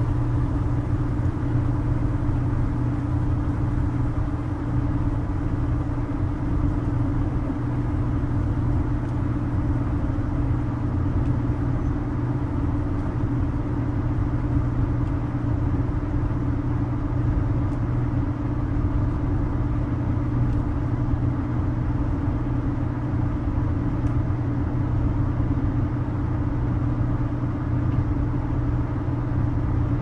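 Brastemp Vantage top-load washing machine spinning its drum: a steady motor hum and rumble with no break or change in pitch.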